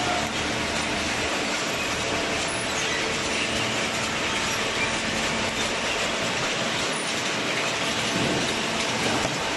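Paper baling machine running, a steady, even mechanical noise with a few faint steady tones.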